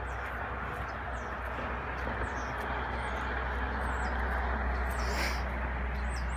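Small birds chirping repeatedly, many short quick calls, over a steady rushing background noise with a constant low rumble.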